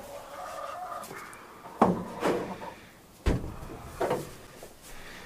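A series of sharp knocks and bumps, four in a few seconds, from something being taken down and handled.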